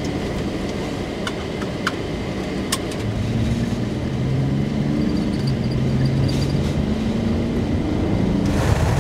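Van engine and tyre noise heard from inside the cab as it pulls onto the highway and speeds up, the engine note rising and growing louder from about three seconds in. A few light clicks in the first three seconds.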